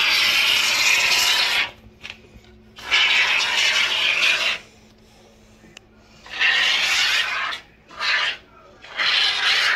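Can of expanding spray foam hissing as foam is shot through its straw nozzle into gaps in wood wall framing. It comes in five spurts: three long ones of one to two seconds, then two short ones near the end.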